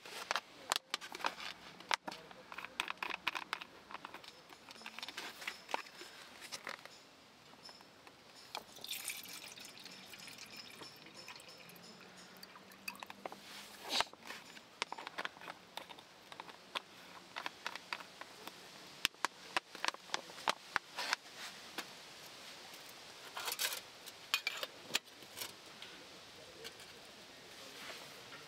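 Light metal clinks and knocks of titanium camping mugs and a lidded mug pot being handled, with two short spells of water pouring, one about nine seconds in and one near the end.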